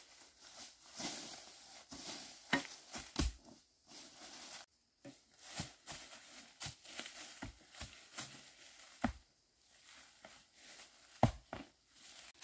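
Hand hoes chopping into earth to dig up bamboo shoots, giving irregular knocks and thuds, with dry bamboo leaf litter crackling and rustling underfoot and under the tools.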